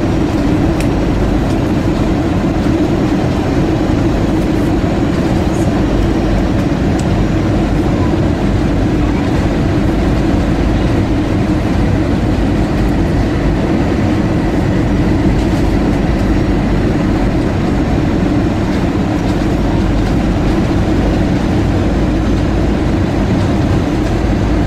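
Steady cabin noise inside an Airbus A320-232 airliner in flight on its descent to land: an even rush of airflow and engine hum, strongest in a low band, with no single events standing out.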